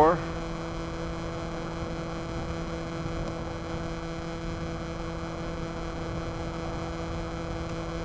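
Force1 F200C Specter quadcopter's brushless motors and propellers in flight: a steady, even hum of several fixed pitches.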